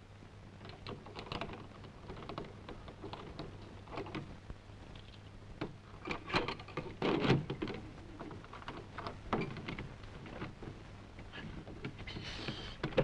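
Padlock and metal door bolt rattling and clicking as a key is worked in the lock of a bolted door: a run of small irregular clicks and knocks, busiest around halfway through.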